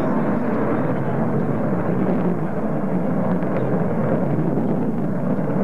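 Steady jet noise from a B-1B Lancer's four General Electric F101 turbofan engines as the bomber flies past, holding an even level.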